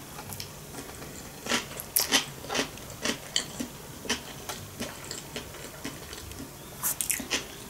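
A person chewing a sushi roll close to the microphone, with irregular soft clicks and mouth noises a couple of times a second.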